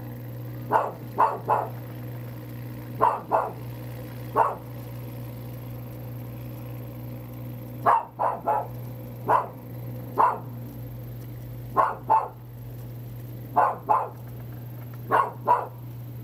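A dog barking repeatedly in short bouts of one to three barks, over a steady low hum.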